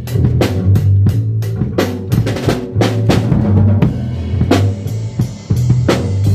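Music led by a drum kit, with bass drum and snare hits in a steady, fast beat over sustained bass notes.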